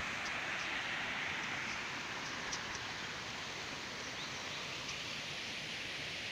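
Steady rush of a small stream's running water, with faint high ticks now and then.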